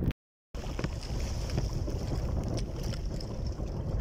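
Wind buffeting the microphone over the steady ambience of the sea around a small boat, with faint scattered ticks. The sound drops out completely for a split second just after the start.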